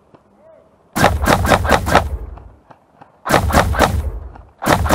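Specna Arms G36 blowback airsoft electric rifle firing three short bursts of about five or six shots each. The last burst starts just before the end.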